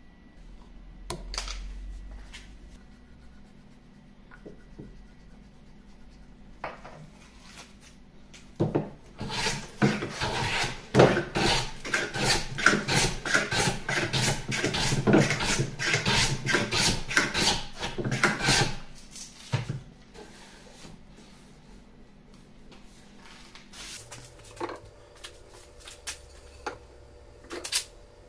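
Steel card scraper drawn in quick short strokes across hardwood, a rapid run of about three scraping strokes a second, starting about eight seconds in and stopping about ten seconds later. A few light knocks and taps of wood come before and after.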